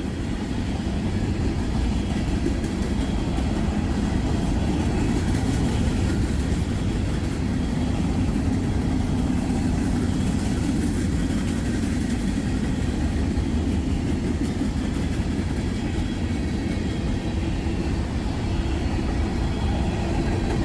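Freight train's loaded tank cars rolling past, a steady rumble of steel wheels on the rails.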